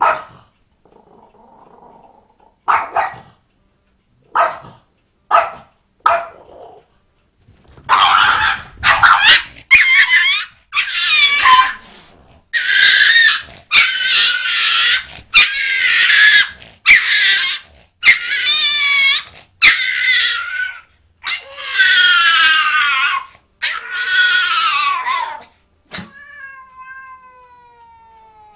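A cat and a French bulldog squabbling: a few short sharp cries, then a long run of loud, wavering yowls and growls about a second each, ending in a long cry that falls in pitch.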